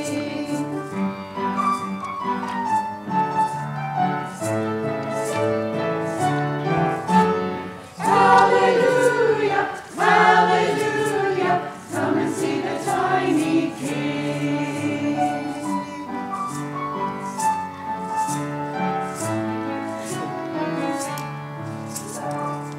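A choir singing with piano accompaniment.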